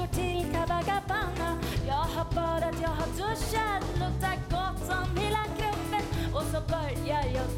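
Live band music: an upbeat song with a wavering lead melody line over a steady bass.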